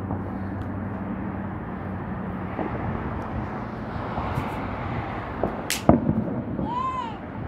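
Distant aerial fireworks over a steady background hum of traffic: a few faint pops, then a sharp crack and a loud bang about six seconds in, followed by a short whistle-like tone that rises and falls.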